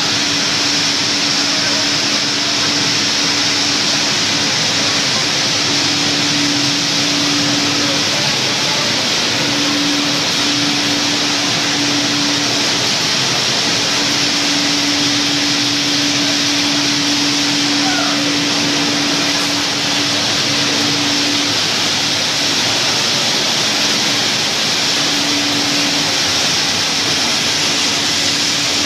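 Olive mill processing line running: conveyors and olive-cleaning machinery give a loud, steady rushing noise, with a low hum that cuts in and out several times.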